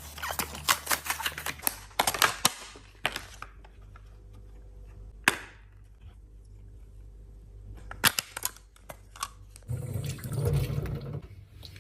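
Irregular sharp clicks and taps in quick clusters, densest in the first two seconds and again about eight seconds in, with a stretch of rustling handling noise near the end.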